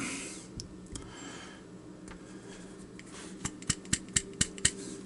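Rusted wafer-core padlock being rapped against a surface to knock its core loose: two sharp taps about half a second in, then a quick run of about eight sharp knocks near the end, with the core still stuck.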